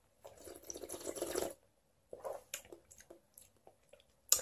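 Soft wet mouth sounds of a sip of rosé wine being swished and slurped in the mouth. There is a slurping noise for about a second, then a few small clicks, and a short sharper mouth sound near the end.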